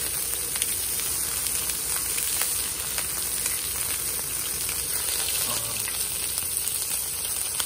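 Thick strips of pork belly sizzling and spitting on a hot griddle pan: a steady frying hiss dotted with many small crackling pops. The meat went onto the pan still frozen, which makes it spatter hard.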